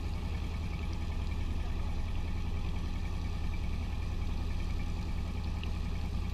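Engine of a narrow wooden boat running steadily while under way, a low even hum.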